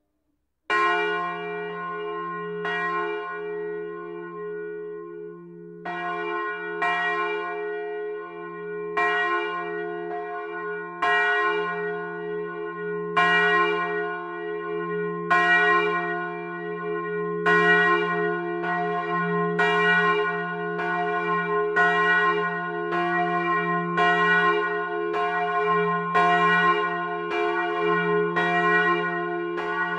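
A single church bell swinging up and ringing in its timber bell frame, heard from inside the tower. The clapper strikes about a second in and again two seconds later, then after a pause keeps striking every one to two seconds, closing to about one stroke a second in the second half. A long hum rings on beneath the strokes.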